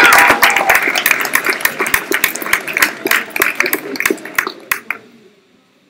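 Small audience applauding, the clapping thinning out and dying away about five seconds in.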